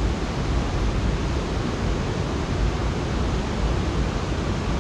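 Flowing river water: a steady, even rush of moving water.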